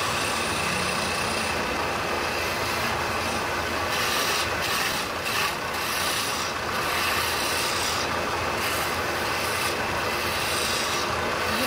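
Electric wood lathe running while a hand-held turning chisel cuts into a spinning wooden baluster: a steady scraping hiss of the tool on the wood that swells with heavier cuts several times in the middle.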